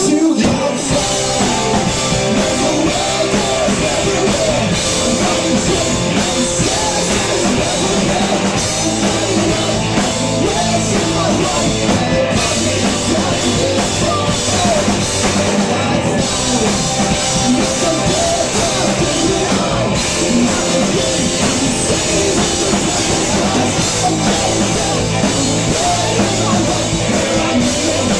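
Live rock band playing loud and without a break: electric guitars, keyboard synth and drum kit, with a singer's voice over them.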